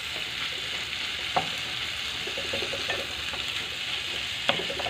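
Sliced onions and tomatoes sizzling steadily in a hot frying pan while being stirred with a wooden spatula, with a couple of sharp knocks of the spatula against the pan.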